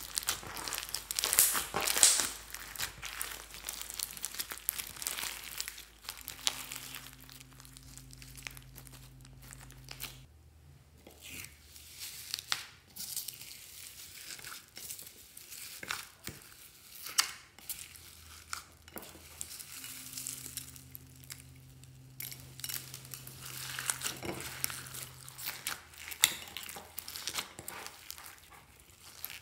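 Hands squeezing and kneading slime packed with foam beads: a run of small crackling pops and squishes. They are busiest near the start and again near the end, with a quieter stretch in the middle.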